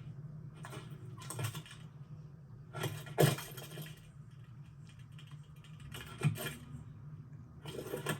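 Dry clicking and clattering in four separate bursts, the loudest about three seconds in, over a steady low hum.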